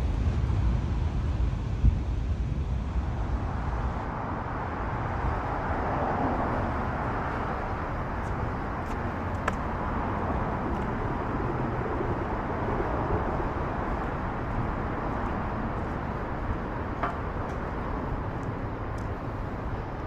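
Steady outdoor city ambience: a continuous low hum of distant traffic, with a couple of faint ticks.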